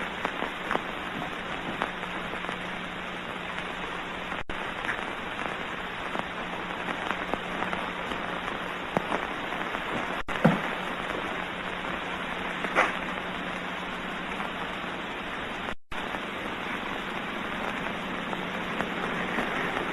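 Hiss and crackle of an early sound film's soundtrack, with a faint steady low hum and scattered clicks and pops.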